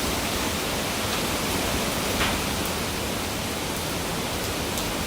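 Steady downpour of tropical-storm rain: an even, unbroken hiss.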